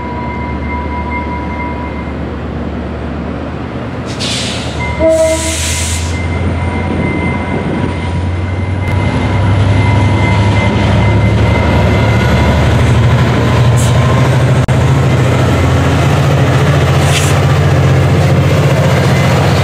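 A Trinity Railway Express diesel commuter locomotive running with a steady low rumble that gets louder about halfway through. There are two short bursts of hiss about four and five seconds in.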